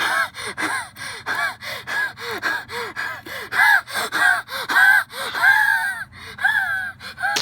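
A girl breathing hard and loudly in quick voiced gasps, about two or three a second. This is exaggerated heavy breathing that drowns out the clicking of the slime.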